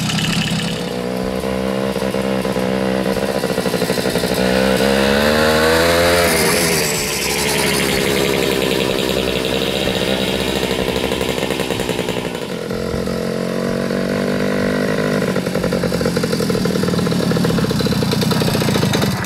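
Romet Ogar 200 moped's Czech-built 50 cc two-stroke engine running under way as it is ridden. Its note climbs over the first few seconds, drops sharply about seven seconds in, dips again about twelve seconds in, then rises once more near the end.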